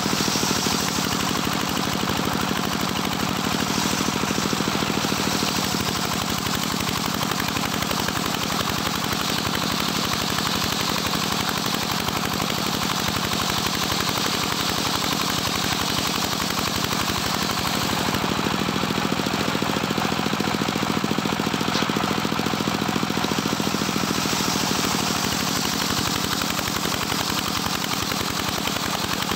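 Homemade engine-driven circular sawmill (serkel) ripping a teak log lengthwise. The engine runs steadily under load while the big blade cuts, and the cutting hiss swells and fades as the log is fed through.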